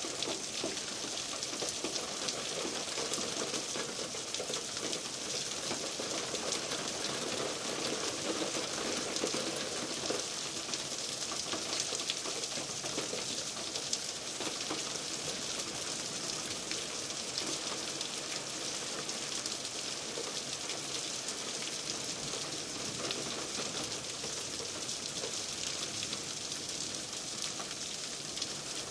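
Heavy rain falling steadily, an even hiss without a break.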